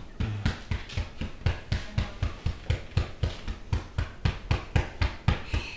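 Hands thumping rhythmically on a dog's chest, about four strokes a second: chest percussion (coupage) to loosen mucus from the lungs of a dog with kennel cough.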